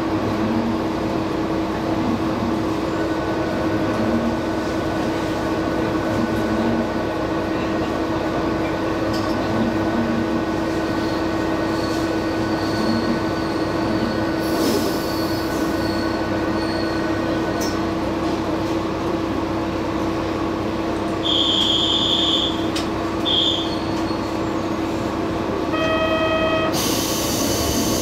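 Diesel railcar idling at a standstill, a steady engine hum with one strong low tone. In the middle there is a faint high squeal as another railcar moves on the next track. Near the end come a short high beep, a short buzzer tone, then a loud burst of compressed-air hiss.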